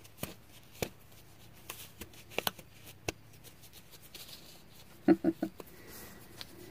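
Hands pulling on knit work gloves and handling a fabric bag: scattered light clicks and rustles, with a short murmur of voice about five seconds in.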